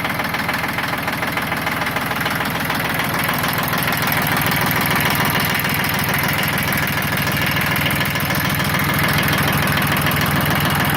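Yanmar YM1610D compact tractor's three-cylinder diesel engine idling smoothly, a little louder from about four seconds in.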